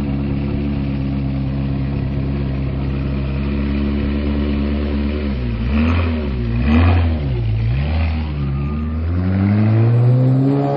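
Ferrari 360 Challenge Stradale's 3.6-litre V8 idling through its exhaust, then blipped three times in quick succession about halfway in, followed by a longer rev that climbs and holds near the end.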